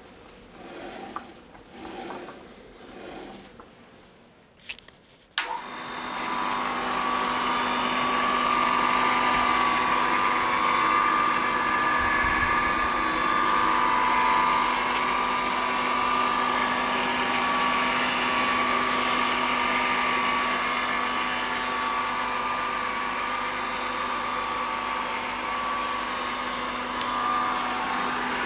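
Homemade surface grinder switched on about five seconds in, its motor and grinding wheel then running steadily with a constant hum and whine.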